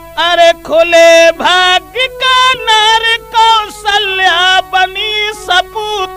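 Holi folk recording: a high melodic line of short pitched notes that slide into pitch, with the drums dropping out.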